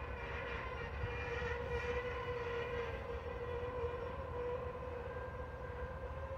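Diesel-electric freight locomotives approaching slowly, their engines giving a steady, even-pitched drone over a low rumble.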